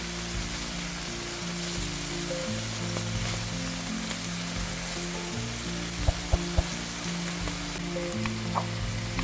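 Pork tenderloin medallions sizzling steadily as they fry in oil in a pan, with a few light clicks a little after the middle. Soft background music plays under it.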